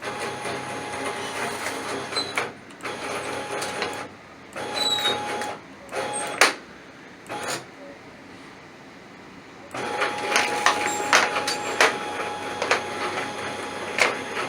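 Linear axis of a DIY router milling machine, driven by a hybrid stepper servo motor, moving with a steady motor whine. Its accordion bellows way cover rustles and clatters loudly as it collapses and extends. The axis makes several short moves with pauses, then a longer run from about ten seconds in.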